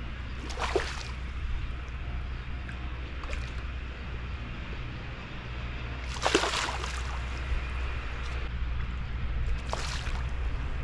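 A hooked fish splashing at the water's surface as it is played on a pole toward the landing net: a few short splashes, the loudest about six seconds in.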